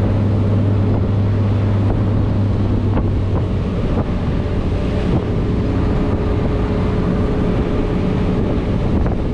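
Motorboat engine running steadily as the boat tows a parasail, with wind buffeting the microphone and the rush of the wake. The deepest part of the drone drops away about three seconds in.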